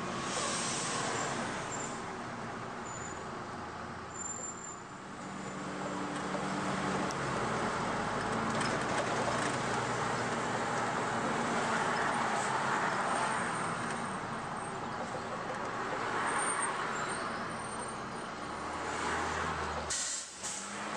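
2002 MAN 12.223 city bus driving, heard from the driver's seat: steady diesel engine and road noise. The engine note shifts with gear changes, gets louder as the bus pulls ahead, and eases off near the end as it slows.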